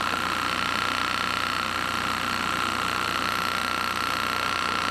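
Motor-driven Stirling engine running in reverse as a cooler, a steady mechanical running noise with a steady high whine. Driven this way it pulls heat out of its displacer end.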